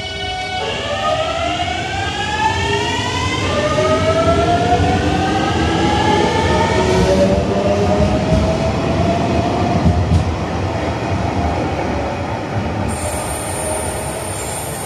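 Limited express train pulling out of a station and accelerating away, its drive giving a rising whine over the rumble of the wheels; the rumble is loudest in the middle and then eases as it draws away.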